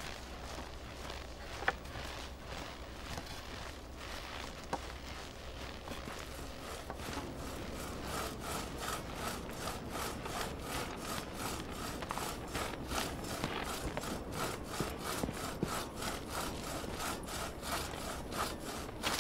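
Footsteps in snow, then from about seven seconds in a two-handled crosscut saw pulled back and forth through a wooden beam in an even rhythm of strokes.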